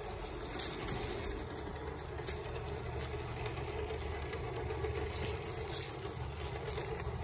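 Radio-controlled scale crawler truck driving over loose gravel: its electric motor and gears whir steadily, with scattered small crunches and clicks of the tyres on the stones.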